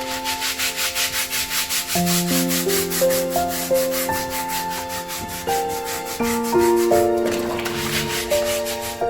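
A scrubbing brush worked in quick back-and-forth strokes, a fast scratchy rhythm of several strokes a second, over calm instrumental background music.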